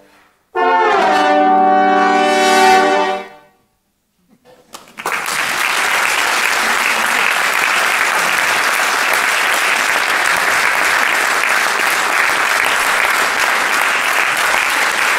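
Four trombones slide up into a held chord that swells and is cut off together, the closing chord of the piece. After about a second of silence, audience applause begins and goes on steadily.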